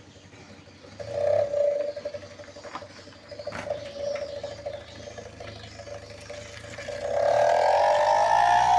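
Odd tone from a Mitsubishi Colt L300's exhaust: a steady whistle-like note that gets louder and rises in pitch about seven seconds in, as if with engine speed. A few short knocks come through about three and a half seconds in.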